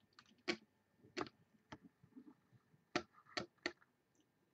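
Faint, irregular sharp clicks of a computer mouse, about five loud ones with softer ticks between, as an on-screen list is scrolled.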